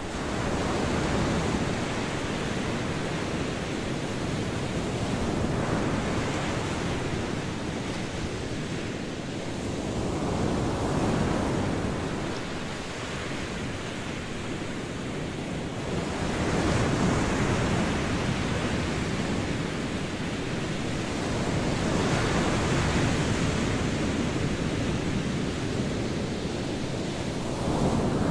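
Waves washing on a shore with wind, a steady rushing that swells and ebbs about every five to six seconds.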